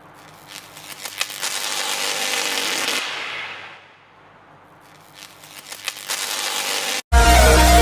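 Crackling, static-like intro sound effects: a swell of crackle that builds for about three seconds and fades, then a second shorter swell. Near the end an electronic dubstep-style music track cuts in loudly.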